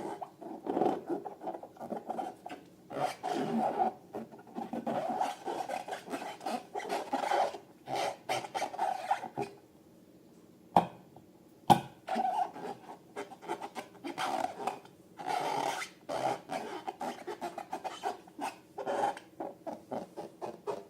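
Balloons and slime being rubbed and scraped in quick, irregular strokes, with a short pause and two sharp clicks about halfway through.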